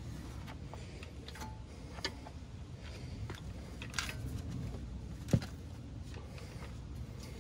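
Scattered metallic clicks and light knocks of a wrench and ratchet working an 18 mm nut on a car's stabilizer link, the sharpest knock a little past halfway, over a low steady rumble.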